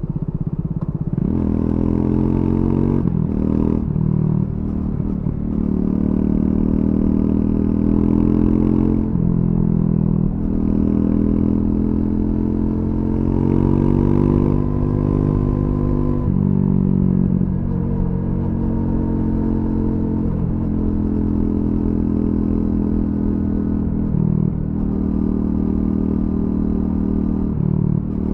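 Triumph Scrambler 400 X's single-cylinder engine through its stock exhaust, under way: the engine note rises and falls as the bike speeds up and slows, with short breaks where the rider changes gear, several times over.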